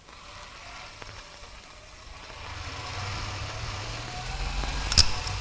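Several military motorcycles with sidecars approaching, their engines growing steadily louder. A single sharp crack comes about five seconds in and is the loudest moment.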